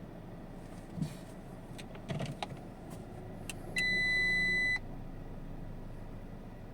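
A few light clicks and knocks, then a single steady electronic beep about a second long from the Audi Q3's dashboard warning chime.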